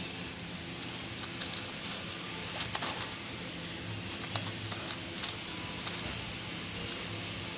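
A steady low hum with a scatter of light clicks and taps between about one and six seconds in.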